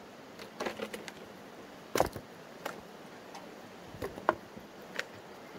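Scattered cracks and knocks of bark being pried and knocked off a log by hand, the loudest about two seconds in.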